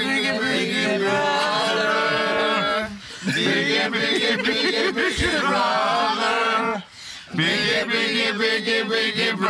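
Several voices singing together a cappella in long held notes, in three phrases with short breaks about three and seven seconds in.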